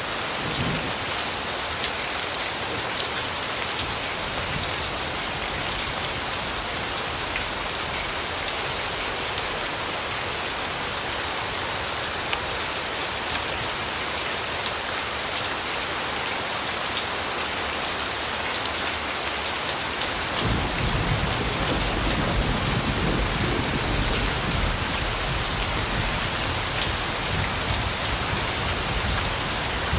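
Steady rain falling on surfaces, a dense even hiss of drops. About two-thirds of the way through, a low rumble of thunder comes in underneath and carries on to the end.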